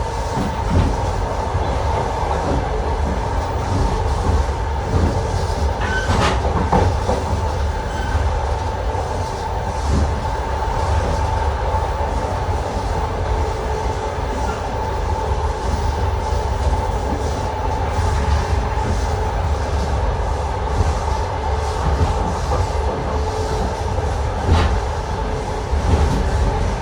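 Long-distance passenger train running along the track: a steady rumble of the carriages with a steady hum, and the wheels clacking over rail joints, with a couple of sharper clicks.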